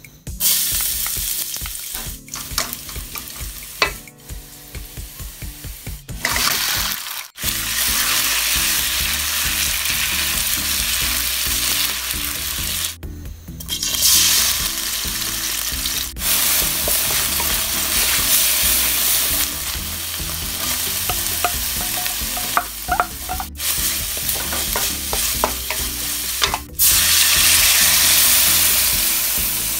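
Garlic and fermented soybean paste sizzling in hot oil in a stainless steel wok, stirred with a wooden spatula; the sizzle breaks off abruptly several times. Near the end water is poured into the hot wok and the hissing is at its loudest.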